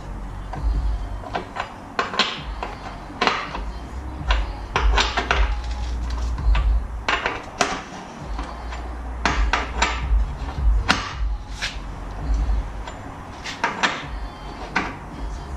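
Irregular knocks and clanks of hand tools and metal parts being handled while dismantling a motorcycle's rear wheel area for a chain and sprocket change.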